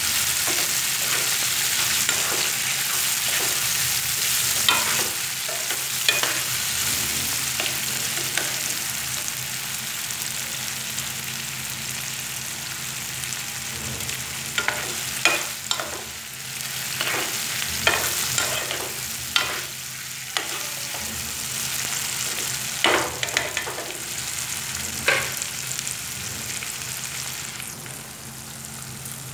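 Cubes of milk cheese sizzling in oil with tomato and onion in a nonstick wok, stirred with a metal spoon that scrapes and clicks against the pan. The clicks come in bunches mostly in the second half, then the stirring stops near the end and the sizzle carries on a little quieter, over a faint low hum.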